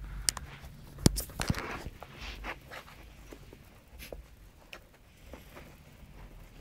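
Scattered light knocks, taps and rustles of Play-Doh being handled and worked by hand, with one sharp knock about a second in.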